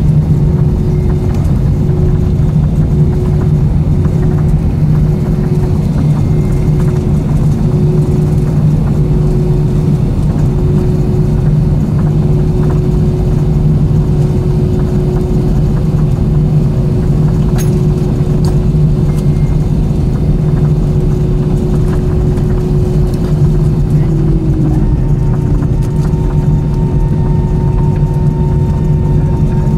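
Steady cabin drone of an Airbus A320 after landing, from the engines and air systems, with a constant hum through it. A second, higher steady tone joins near the end.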